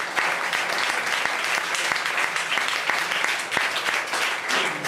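Audience applauding, many hands clapping in a dense, steady patter that thins slightly near the end.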